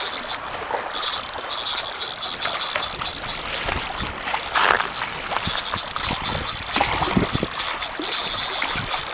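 Spinning reel's drag buzzing in spells of a second or two as a big wels catfish pulls line off against the bent rod, over wind noise on the microphone.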